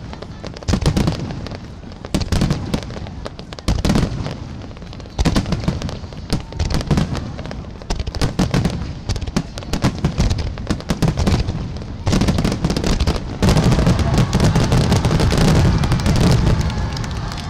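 Fireworks finale barrage: rapid booms of shells bursting overhead with sharp crackling between them, thickening about two-thirds of the way through into a dense, nearly continuous run of bursts.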